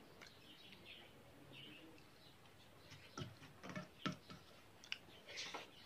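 Faint eating sounds: soft mouth clicks and smacks while chewing rice with fish curry, and fingers gathering rice on a steel plate. Short clicks come more often in the second half.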